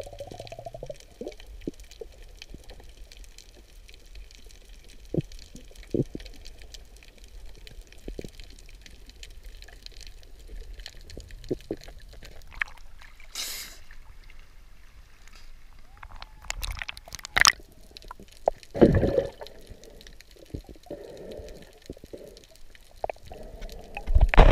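Water heard through a camera held underwater: a muffled, low hiss with scattered small clicks and gurgles, and louder bursts of water noise about 19 seconds in and again at the end.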